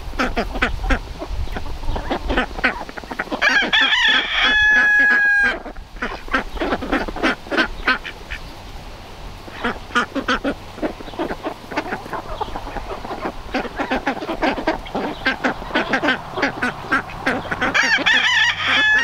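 A mixed flock of ducks and chickens calling as they forage: frequent short duck quacks and hen clucks throughout. A rooster crows twice, once about four seconds in and again near the end, each crow ending on a long held note.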